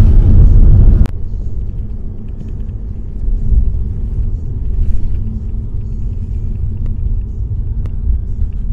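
Steady low rumble of road and tyre noise inside a moving car's cabin, louder for the first second and then dropping suddenly to a lower steady level.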